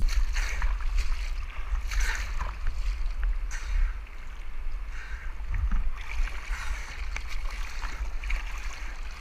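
Kayak on fast, high river water: rushing water and splashes from hand and paddle strokes, with a steady low rumble on the action-camera microphone.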